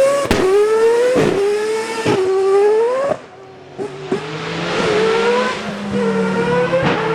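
Rally car engine revving hard, its note climbing and cutting sharply about once a second for the first three seconds. It then drops away suddenly, and a second, lower engine note rises and slowly falls.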